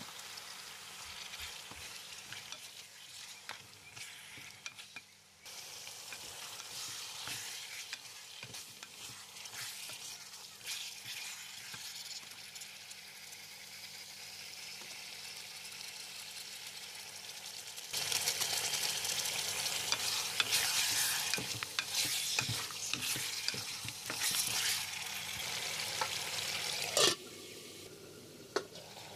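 Mutton pieces sizzling in hot oil in an aluminium pot, stirred with a wooden spoon that scrapes and knocks against the pot. The frying gets louder about two-thirds of the way through, and a sharp clack near the end is followed by quieter sizzling.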